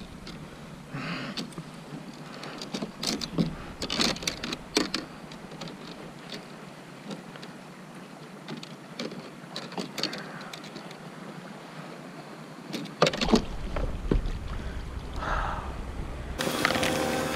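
Scattered light knocks and clicks on a plastic fishing kayak, over a soft steady wash of water. About thirteen seconds in, a low rumble joins.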